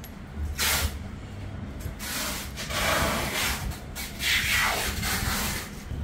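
Rubbing and scraping handling noise in a few bursts, one scrape falling in pitch, as hands work the screw-on connector and cable of an electric wheelchair's control lead.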